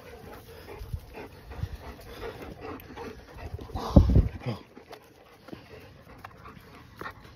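Dog panting close by, in a run of short breaths, with a loud thump about four seconds in.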